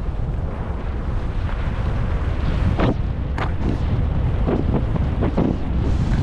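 Wind buffeting the microphone as a skier heads downhill, a steady low rumble, with the skis scraping over packed snow in several short hisses from about halfway through.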